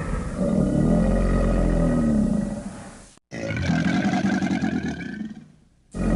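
Crocodilian bellowing: two long, deep calls, each rising and falling in pitch. The first is cut off abruptly about three seconds in, the second fades out, and a third call begins near the end.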